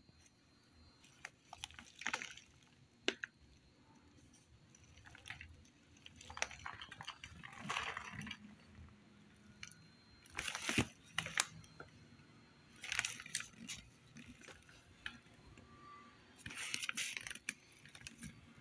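Crinkling and rustling from a bag of Cat's Best plant-fibre cat litter being handled, in half a dozen irregular bursts of about a second each, with a few sharp clicks in between.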